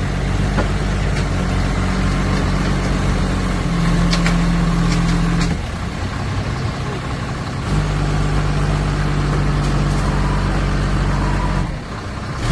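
Large forklift's engine running, its speed stepping up for about two seconds around four seconds in and again for about four seconds from about eight seconds in, dropping back to a lower note in between.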